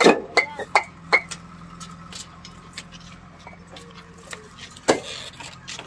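Fired clay bricks clinking and knocking against each other as they are handled and stacked by hand: a quick run of four sharp clinks at the start, lighter knocks after, and one more loud clink near the end.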